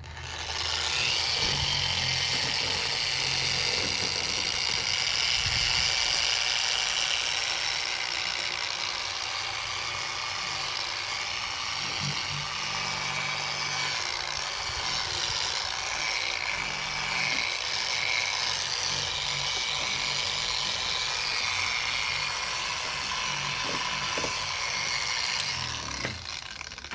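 Handheld power tool spinning a 1500-grit sanding disc, wet-sanding a plastic headlight lens: a steady whirring hiss that stops near the end.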